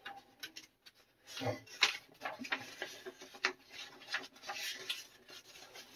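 Large sheets of printed paper rustling as they are handled and turned over, in irregular bursts with a few sharp crinkles and taps.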